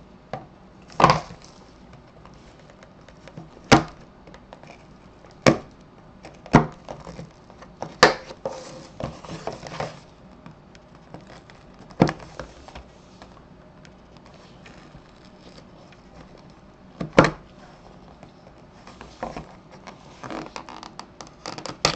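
A small cardboard box and a knife handled on a wooden tabletop: several sharp knocks spread out, with stretches of scratchy scraping as the blade works at the box's tape seal.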